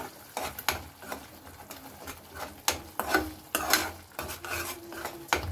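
Steel spoon stirring and scraping masala paste around a metal kadhai, in short irregular strokes, while the spices and onion-ginger-garlic paste fry in oil with a light sizzle.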